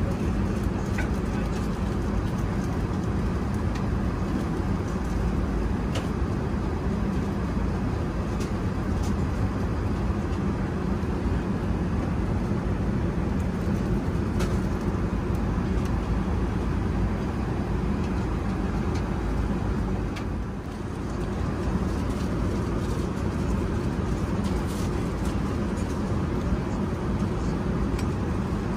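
Steady cabin noise of an Airbus A380 in cruise: the low, even drone of the engines and air rushing past the fuselage, with a few faint clicks. It dips slightly for a moment about twenty seconds in.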